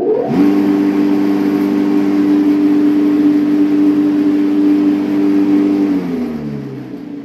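Electric lawn mower's capacitor induction motor starting with a quick rise in pitch, running with a steady whine, then winding down with falling pitch about six seconds in. It spins up and runs rather than only humming, now that its bearings have been replaced.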